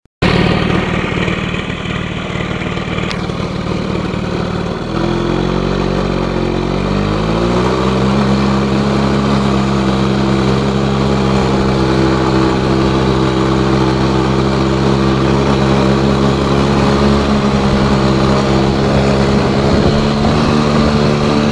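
ATV engine running at a low steady speed. About five seconds in, its revs climb over a couple of seconds, then hold steady at the higher pitch.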